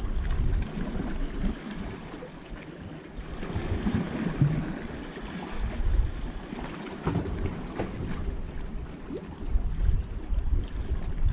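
Wind buffeting the microphone in gusts, with sea waves washing against the rocky shore.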